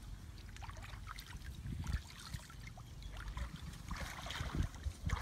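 Hands sloshing and groping in shallow muddy water, with many small irregular splashes and drips.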